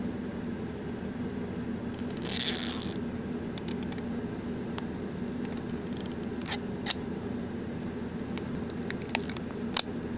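Printed plastic wrapper sleeve on a toy mystery-pack capsule being torn open and peeled off by hand. There is one longer rip about two seconds in, then scattered sharp crinkles and crackles as the wrapper is worked loose.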